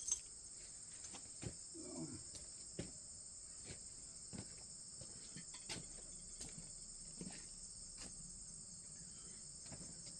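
Steady high-pitched insect chorus, with scattered faint clicks and taps from handling small metal parts, and one sharper click at the very start.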